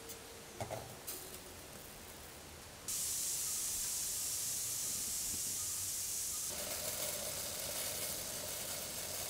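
Water boiling in a steel pot on a gas burner: a steady hiss of bubbling starts suddenly about three seconds in and shifts slightly in tone a little after six seconds. Near the start come a couple of faint clinks of a spoon against the pot.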